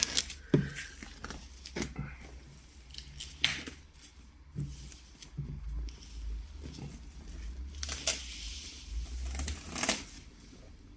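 Cardboard router box being handled and slid open by hand: scattered scrapes, taps and rustles of cardboard, with a few louder brief swishes. Clear plastic wrapping crinkles near the end.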